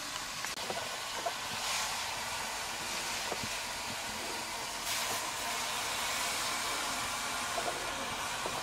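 Fresh nettle leaves sizzling and steaming in a hot metal pot over a wood fire: a steady hiss, with a few faint clicks.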